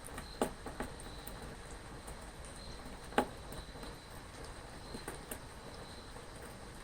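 Steady rain, with single heavier drops striking close by at irregular moments, the loudest about three seconds in.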